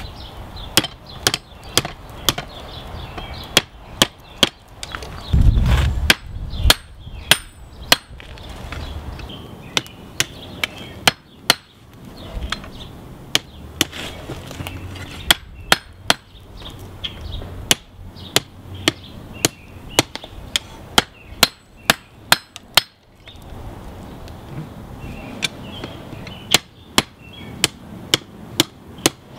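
Hand hammer striking a red-hot railroad spike on a steel anvil in quick runs of sharp blows with short pauses between, bending the stepped-down end down over the anvil's edge. A brief low rumble comes about five seconds in.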